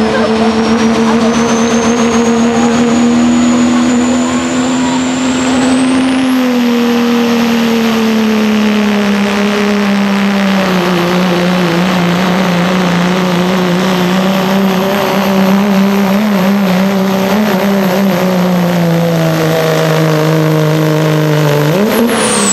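Dodge Ram's Cummins turbo-diesel inline-six at full throttle pulling a sled, with a turbocharger whistle that climbs steeply about six seconds in and then holds high. The engine note sags in steps as the load builds. Near the end the whistle falls away sharply.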